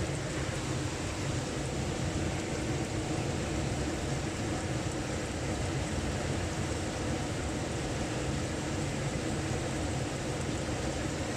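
Steady rushing of flowing hot-spring water, an even unbroken noise.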